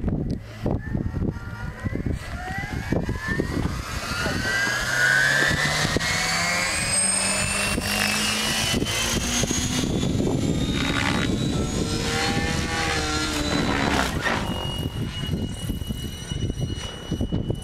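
Electric 700-size RC helicopter (Assault 700 DFC, Align motor) spooling up: the motor and rotor whine rises steadily in pitch for several seconds, then holds at a steady pitch as it lifts off and flies.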